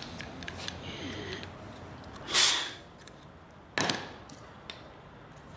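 Faint clicks and handling sounds, then a brief loud breathy rush of noise about two seconds in, followed a second and a half later by a single sharp knock on the table.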